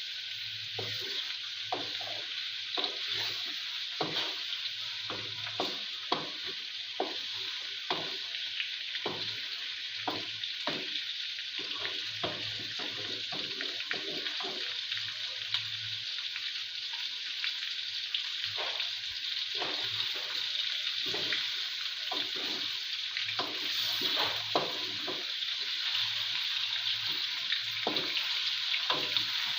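Chicken pieces frying in hot oil in a pot with a steady sizzle, and a spoon clicking and scraping against the pot, a few times a second, as they are stirred.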